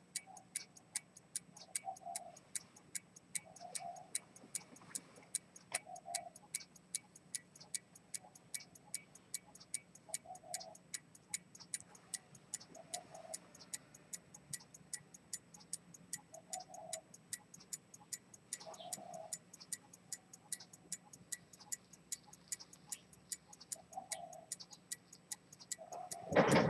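Dent London 18k gold key-wound fusee pocket watch with a pivoted-detent chronometer escapement running, ticking fast and evenly. A single loud knock near the end.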